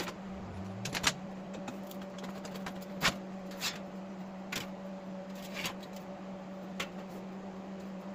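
A few separate sharp knocks of sheet metal being struck with a mallet and handled on a steel workbench. The loudest are a close pair about a second in and another about three seconds in, all over a steady hum.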